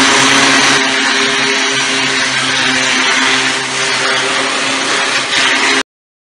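Electric walk-behind floor scarifier running, its cutter drum grinding old coating off a deck surface: a steady harsh rasp over a low motor hum. It cuts off abruptly near the end.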